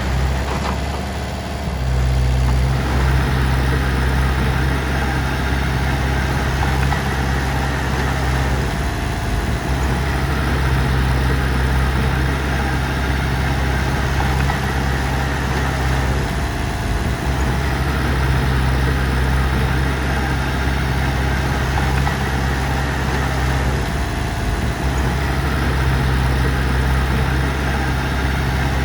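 Heavy diesel engine running steadily with a low, even drone; it eases off briefly about a second in, then picks back up.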